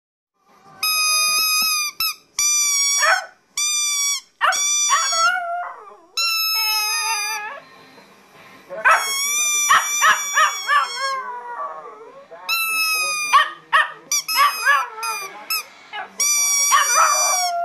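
A squeaky toy squeezed in a string of steady, high-pitched squeaks of half a second to a second each, while a chihuahua howls along with wavering, rising and falling howls and yips in between.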